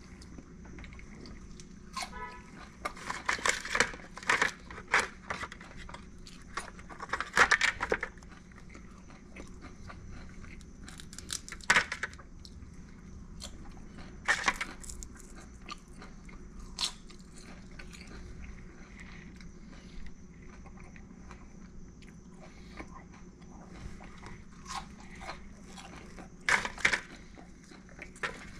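Crisp crunching of grilled softshell crab as it is bitten, chewed and pulled apart by hand, in irregular clusters: several crunches in the first few seconds, single ones every few seconds after that, and another cluster near the end. A faint steady hum runs underneath.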